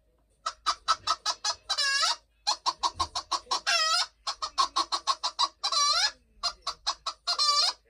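A hen cackling: runs of quick clucks, each ending in a longer drawn-out squawk, four times over.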